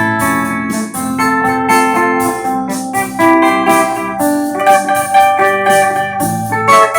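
Electric guitar played on a clean tone, ringing out sustained chords and melody notes.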